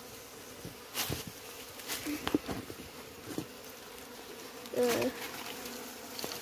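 Honeybees buzzing steadily around an opened colony's comb, with a few sharp knocks from the comb being handled. About five seconds in, a single bee buzzes loudly past close by, its pitch wavering.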